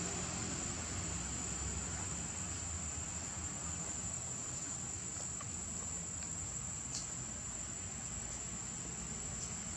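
A steady, high-pitched insect drone holding one unbroken tone, over a low background rumble.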